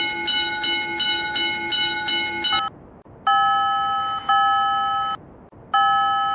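Railroad crossing warning signal ringing in quick repeated bell strikes, about three a second. After a short gap, another crossing alarm sounds in long, steady electronic tones, each about a second long with brief pauses between.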